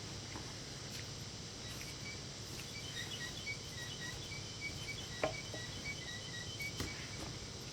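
Faint, rapid high-pitched chirping over a steady background hiss. There is a sharp click about five seconds in and another near the end.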